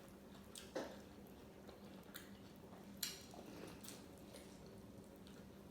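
Faint close-up chewing: a few soft, wet mouth clicks over a low steady hum.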